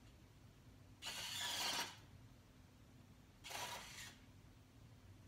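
Small electric motors and gears of a popcorn-feeding helmet whirring in two short runs: one about a second in lasting just under a second, and a shorter one about three and a half seconds in.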